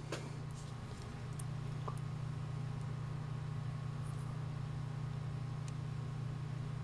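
Steady low background hum, with a few faint ticks as two ceramic cartridge fuses are handled between the fingers.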